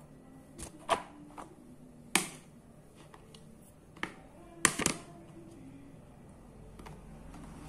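Kitchen handling noise: about five sharp knocks and clacks, a loud one about two seconds in and a quick double knock a little before the end, as a plastic bowl is lifted and set back down on the counter beside a wooden cutting board.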